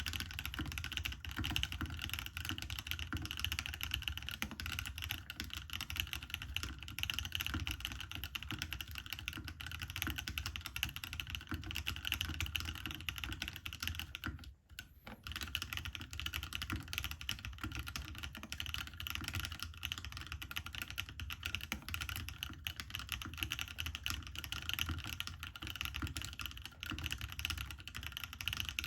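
Fast, continuous typing on a custom mechanical keyboard with Akko POM Pink switches lubed with Krytox 105, mounted on an aluminium plate, with a brief pause about halfway through.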